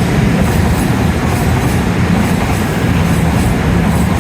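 A modern passenger train passing through the station at speed without stopping: a loud, steady rush of wheels and running gear, with a regular clatter of the wheels over the rail joints, about three beats a second.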